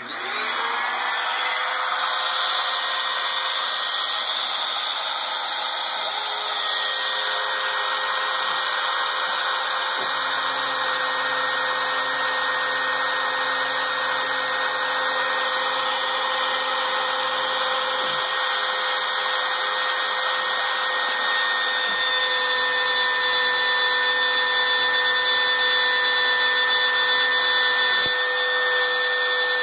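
Wood router switching on and spinning up to a steady high whine, running in a home-built drawer-slide CNC machine as it cuts into pine. A lower hum comes and goes underneath, and the sound grows louder and harsher about three-quarters of the way through.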